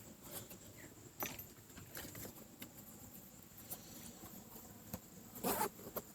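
Saddle hunting gear being handled: faint, scattered clicks and short rustles, with a louder rustle near the end.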